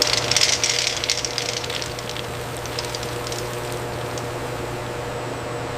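Roasted peanuts rattling and clattering in a rotating salt drum over a steady factory machine hum. The rattle is densest in the first two seconds, then settles into an even whir.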